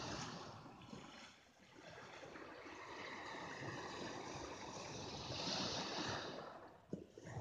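Sea surf washing over a pebble beach: a steady hiss that swells about five seconds in and eases near the end.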